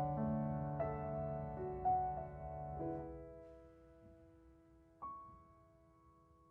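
Solo piano closing out a song: chords struck about a second apart, the last one left to ring and fade, then a single high note about five seconds in left to ring out softly.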